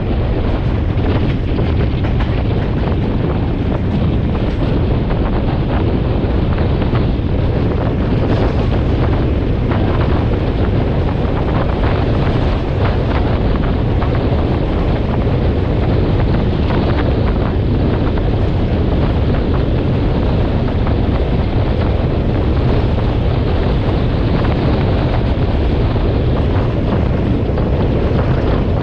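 Wind buffeting the microphone over the steady running noise of a moving passenger train, with faint clicks from the wheels on the track.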